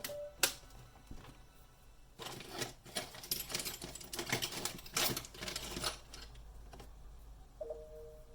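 Irregular clicks and clatter of a ThinkPad laptop's plastic and metal parts being handled and pried during disassembly, busiest in the middle.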